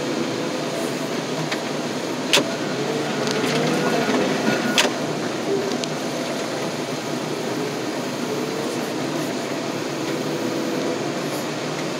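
Loader's diesel engine running steadily, with a hydraulic whine that rises and falls in pitch as the arms move. Two sharp metal clanks come about two and five seconds in.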